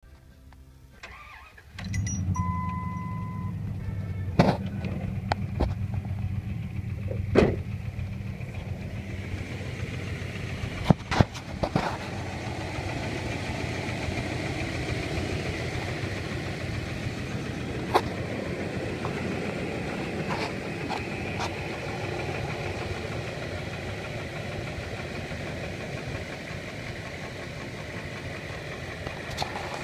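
2003 Dodge Ram's 4.7-litre Magnum V8 starting about two seconds in, then idling steadily with a tapping from the top end, a fault the owner is tearing the engine down to find.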